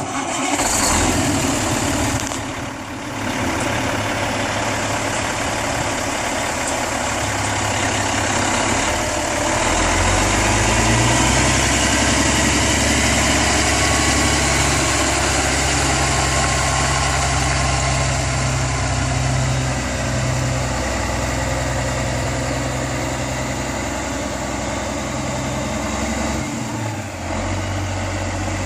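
1999 Freightliner FL112 truck tractor's diesel engine running steadily at idle. Its low rumble grows stronger about ten seconds in and eases back near the end.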